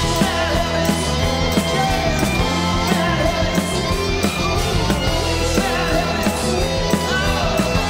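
Rock band playing live and loud, with electric guitar and a steady drum beat.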